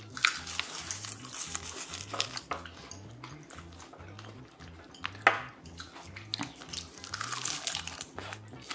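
Eating sounds: chopsticks clicking against dishes and chewing, as sharp scattered clicks, the loudest about five seconds in. Soft background music with a repeating bass line runs underneath.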